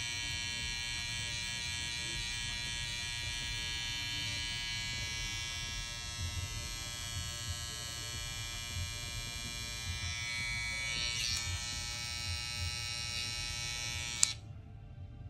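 BaBylissPRO cordless hair trimmer fitted with a sharpened Chameleon FX T-blade, running with a steady high buzzing whine that wavers briefly around the middle. It is switched off with a click about fourteen seconds in.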